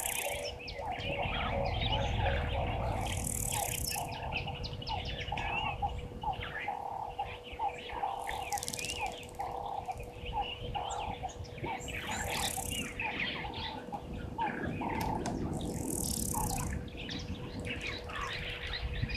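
Several wild birds calling and chirping, one of them repeating a short low note about twice a second, with a short high hiss about every four seconds and a faint steady hum underneath.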